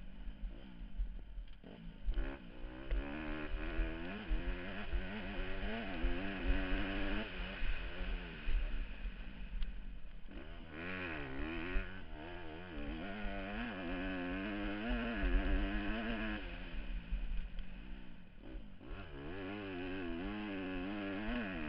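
Motocross bike engine revving up and dropping back again and again as the rider accelerates, shifts and backs off over the dirt track, with heavy wind buffeting on the helmet-mounted microphone.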